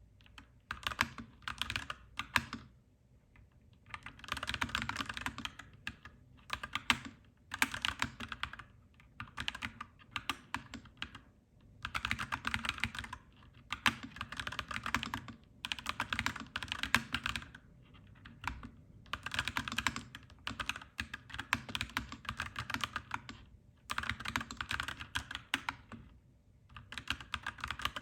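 Clacky mechanical keyboard being typed on in bursts of a second or two, with brief pauses between them. The keystrokes come as rapid runs of sharp clacks.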